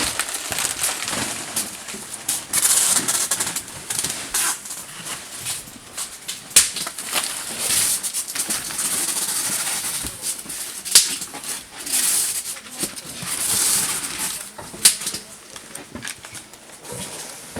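Irregular knocks and clicks with bursts of rustling hiss: handling and moving about among packed boxes and equipment in a warehouse.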